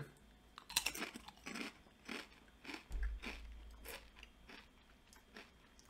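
A person crunching and chewing a mouthful of kettle-cooked potato chips: a string of short, sharp crunches that grow fainter toward the end.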